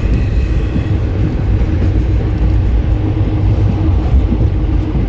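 Steady low rumble of a moving vehicle, heard from inside it while it travels.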